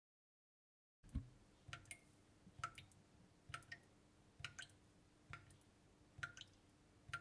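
Near silence with faint drip-like clicks starting about a second in, roughly one every second and often in close pairs, each with a soft low thump.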